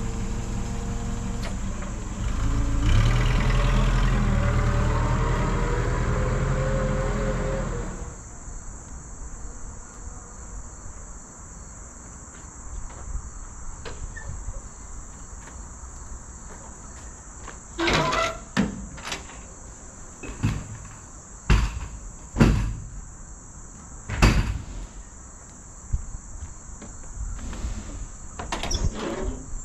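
Forklift engine running and revving, rising in pitch, then cutting off suddenly about eight seconds in. After that, insects trill steadily and high-pitched in the trees. From about eighteen seconds in, there is a series of sharp knocks as the box truck's metal rear door is handled.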